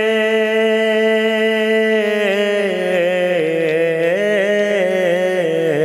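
Wordless vocals of a naat: a long held note, then from about two seconds in a winding melody with wavering pitch.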